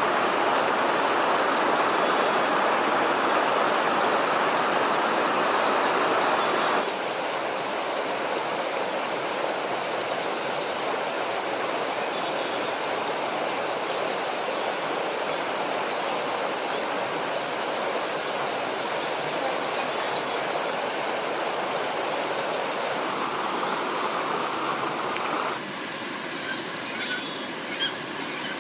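Stream water running steadily, with short bird chirps above it. The water sound drops abruptly twice, about seven seconds in and again near the end, and a few light clicks come near the end.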